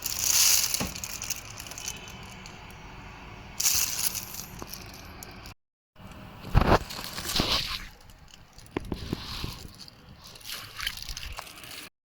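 Pressure washer spraying water in short bursts, with a steadier water sound between them. There is a brief gap of silence about halfway through.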